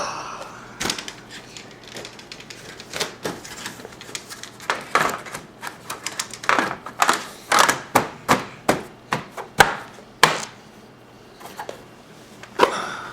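Irregular clicks and knocks of plastic and metal parts being handled and fitted as an LCD monitor is put back together, coming thick and fast in the middle of the stretch.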